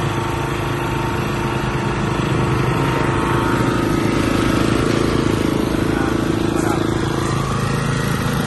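Small OHV petrol engine of a Tsuchiya walk-behind reel mower running steadily.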